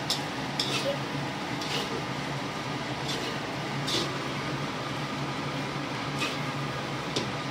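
Metal spatula scraping and tossing fried rice in a stainless steel wok, making several short scrapes at irregular intervals over a steady background hum.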